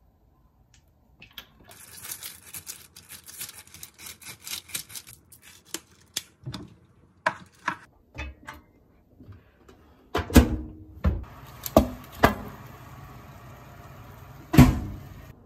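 A few seconds of rapid clicking, then a metal baking tray being handled in a combination microwave oven: several loud clunks of the tray and door over the oven's steady fan whir, with one more heavy clunk near the end.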